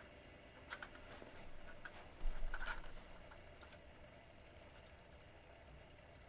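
Light clicks and ticks of small plastic and metal parts being handled as the wires are worked at in the push-in terminals of a fluorescent light ballast's connector, with a louder clatter about two and a half seconds in.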